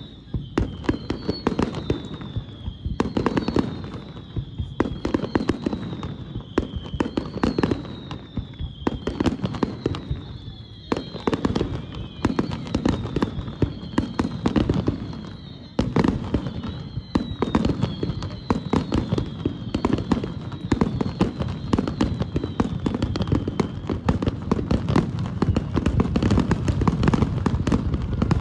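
Aerial firework shells bursting in rapid succession: a continuous run of booms and crackling with hardly a gap, several heavier bursts standing out.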